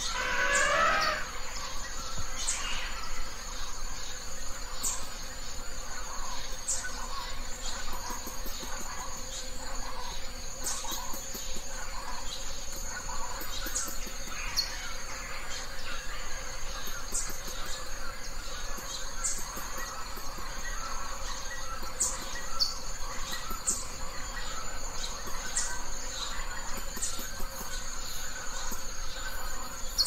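Forest ambience: a steady high insect drone with short bird chirps repeating every second or two, and one louder sweeping call right at the start.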